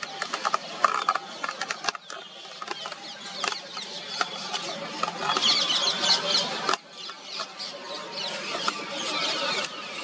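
Outdoor ambience: a dense mix of rapid high chirps and sharp clicks, the chirping busiest about halfway through.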